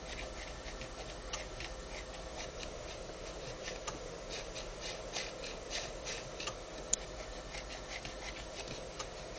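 Computer mouse being slid around and clicked in small irregular scrapes and ticks, with one sharper click about seven seconds in, while a faint steady hum runs underneath; the pointer on the defective panel PC is freezing and not responding.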